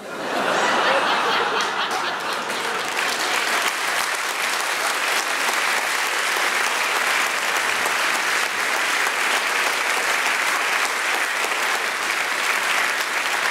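A large audience applauding, starting suddenly and holding steady.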